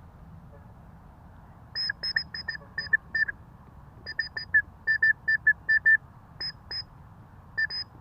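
White-breasted woodswallow calling: short, same-pitched notes repeated in quick runs of several a second, starting about two seconds in, with a few pauses between runs.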